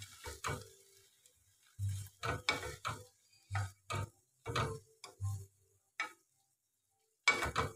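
Slotted spatula and wooden spoon stirring and tossing spinach and onion in a nonstick pan: a run of short scrapes and knocks against the pan, with a pause of about a second near the end.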